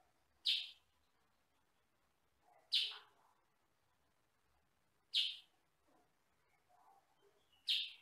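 Kutilang sutra, a small yellow-and-black bulbul, giving a short, sharp high call four times, about every two and a half seconds.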